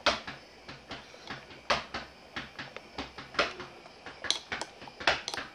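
Irregular clicks and knocks of a camcorder being handled, with fingers pressing its buttons and shifting on its body, picked up close by the camera's own microphone. About a dozen sharp taps, the loudest at the very start.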